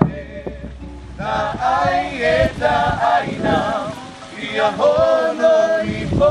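Several voices singing a Tahitian song together, the melody rising and falling, with a few sharp percussion strikes near the start and end.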